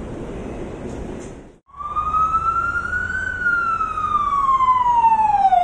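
Steady rumble of subway-station noise, cut off abruptly about a second and a half in, followed by an emergency vehicle's wailing siren: one slow rise and fall in pitch, beginning to rise again near the end.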